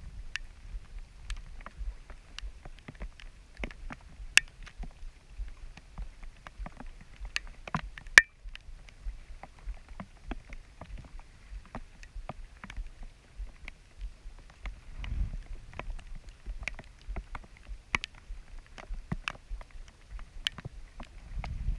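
Raindrops striking the camera housing: scattered sharp ticks, a few a second at uneven intervals, with a louder one about eight seconds in. Under them runs the low rumble of a small sailboat moving through the water.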